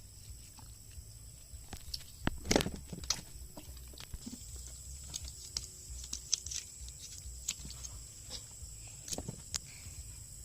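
Scattered light knocks and clicks of handling work, the loudest about two and a half seconds in, over a steady high insect drone.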